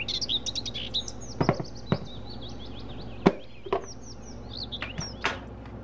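A plastic food container knocks a few times on a granite countertop as it is set down and handled, the sharpest knock about three seconds in. Over it run continual fast, high chirping calls.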